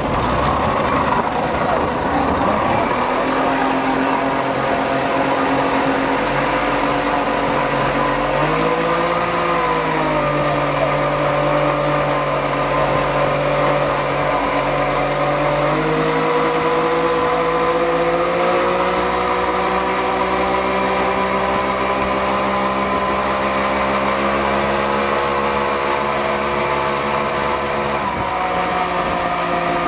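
Yamaha 60 hp two-stroke outboard motor running with the boat under way, its pitch stepping up several times as the throttle is opened and easing back a little near the end. A steady rush of water and wind lies under the engine.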